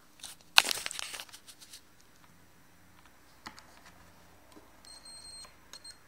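A loud handling clatter about half a second in, then a digital multimeter on continuity test gives a steady high beep lasting about a second near the end: the probes are across a closed contact of the washing machine's pressure switch, a short circuit.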